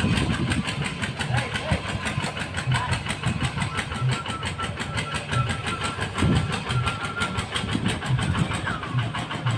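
QUICK QH11 combine harvester's engine running steadily with a fast, even beat as the machine travels.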